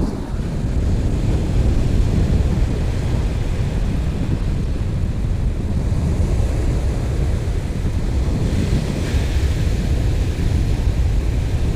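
Wind buffeting the microphone over the steady wash of surf breaking on the beach. The hiss of a breaking wave swells about nine seconds in.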